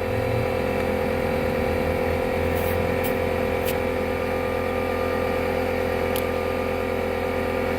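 Small electric air compressor running steadily with an even hum while it inflates a motorcycle tire freshly repaired with a plug, with a few faint ticks.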